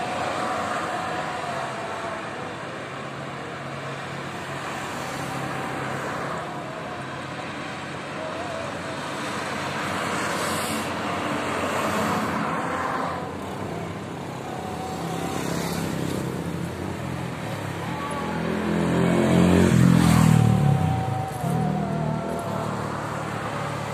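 Light highway traffic: single cars and trucks passing one at a time, their tyre noise swelling and fading. The loudest is a heavy vehicle going by about twenty seconds in, its engine note falling in pitch as it passes.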